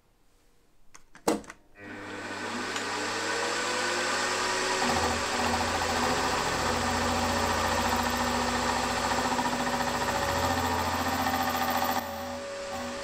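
A click, then a milling machine's spindle starts and runs with a steady hum while an end mill cuts a slot into a small metal part. The sound steps down abruptly about a second before the end.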